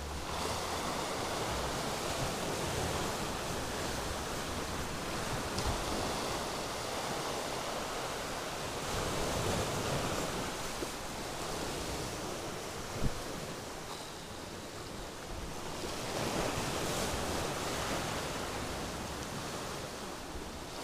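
Sea waves breaking and washing over a rocky shore, swelling and easing every few seconds, with a single sharp knock about two-thirds of the way through.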